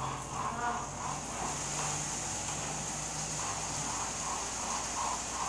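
Gravy being stirred in a skillet on a gas stove: soft scraping strokes repeating about twice a second over a steady hiss.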